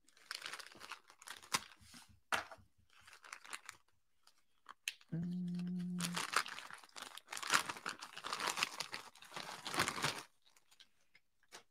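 A shipping bag being torn open and its packaging crinkled by hand, in uneven bursts of crackling and rustling.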